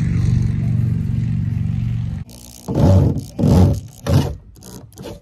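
Steady low hum for about two seconds, then a corded power drill run in three short bursts as it bores into the fiberglass truck-cap roof.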